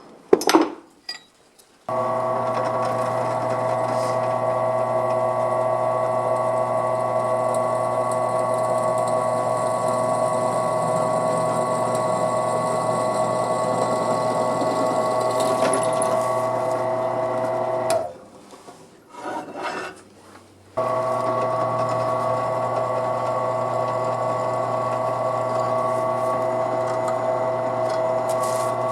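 Air-conditioning idle-up solenoid valve making a steady buzzing hum. The hum starts abruptly about two seconds in, stops for a few seconds with some small clicks, then comes straight back. This abnormal noise comes from the solenoid being connected the wrong way round.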